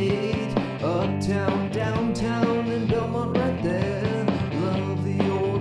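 Upbeat rock-and-roll song with strummed acoustic guitar and a man singing.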